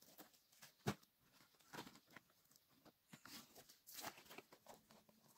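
Soft rustling and crackling of large cut leaves, their stalks and dry grass being handled, with one sharp snap about a second in.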